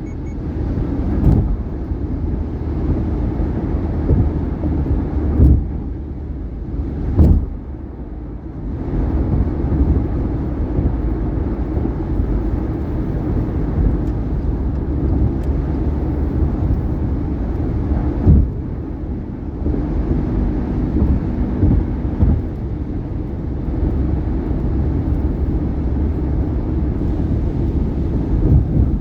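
Steady tyre and road noise from a 2018 Subaru Outback at highway speed, broken by a few sharp thumps as the wheels cross bridge expansion joints.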